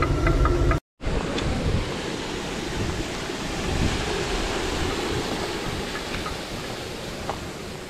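A water-driven stone flour mill (gharat) turning, a low rumble with rapid regular clicking, cuts off abruptly after under a second. It gives way to the steady rushing of stream water pouring through the channel under the mill, which fades a little toward the end.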